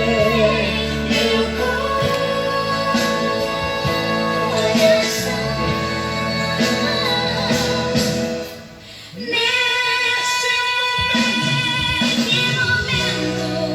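A song with a sung melody over steady accompaniment. It dips briefly about nine seconds in, then resumes with a long held note.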